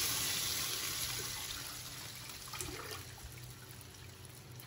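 Wet rice and water poured from a plastic container into a wok of hot chicken broth: a watery pouring hiss that is loudest at first and fades away steadily.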